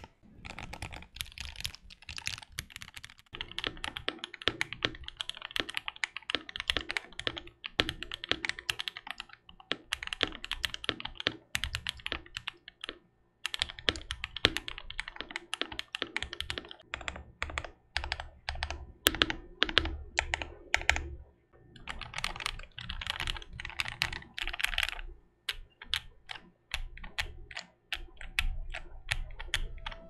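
Fast typing on a Freebird 60 60% mechanical keyboard with linear switches, in dense runs of clacky keystrokes. The board is first heard in its stock tray-mount form, then, after a short break about halfway through, modded to a gasket-style mount for more flex and better acoustics.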